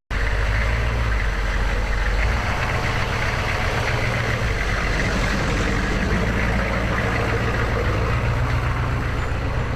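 Vehicle engine running steadily, a continuous low drone with some rumble and noise above it.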